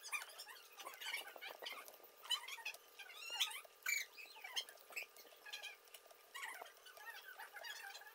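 Many short, high chirping animal calls that glide up and down in pitch, mixed with small clicks.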